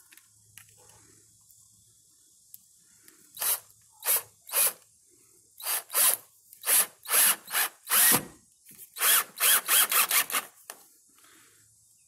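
Cordless drill driving a screw through a door striker plate into the wooden door jamb. It runs in a string of short bursts starting about three seconds in, coming closer together near the end.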